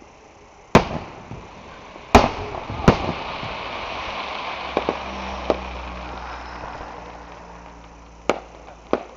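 Aerial firework shells bursting: three loud bangs in the first three seconds, then a spell of crackling with a few smaller pops, and two more bangs near the end.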